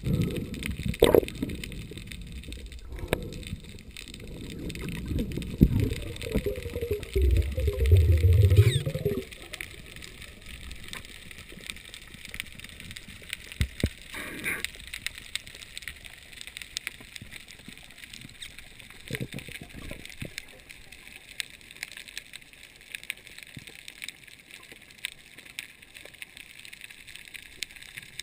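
Underwater sound from a diving camera: water churning and gurgling around the housing as a breath-hold diver kicks down, loud and low for about the first nine seconds. It then drops suddenly to a steady faint underwater hiss with scattered sharp clicks.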